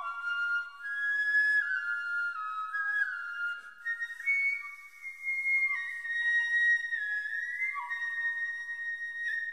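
Ryūteki, the Japanese bamboo transverse flute of gagaku, playing a slow solo melody of long held notes. The notes climb step by step over the first few seconds, then hold high, sliding up or down into some of them.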